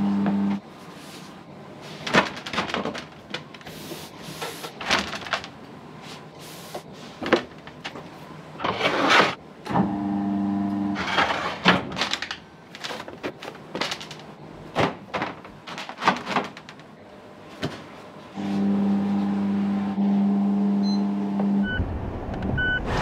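Kitchen work: scattered knocks and clatter from handling dough and stainless-steel trays, broken three times by a steady electric machine hum. Near the end comes a car's low rumble with a few short beeps.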